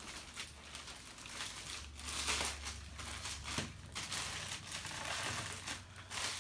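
Plastic shipping bag and protective packaging wrap crinkling and rustling in irregular crackles as a set of motorcycle handlebars is pulled out and unwrapped.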